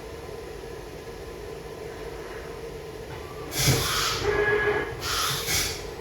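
Two short bursts of hissing noise, the first about halfway through and the second near the end, each lasting about a second, over a steady low hum.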